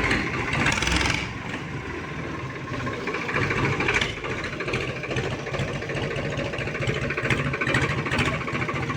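Farmtrac tractor's diesel engine running through a newly fitted exhaust pipe, a little louder in the first second and then steady.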